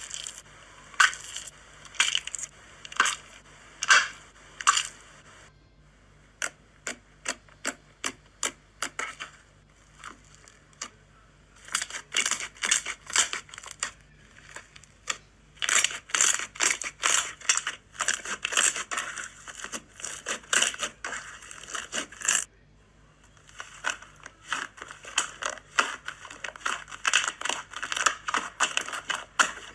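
Slime being squeezed and pressed, giving off runs of rapid crackling clicks in bursts, with short pauses between them.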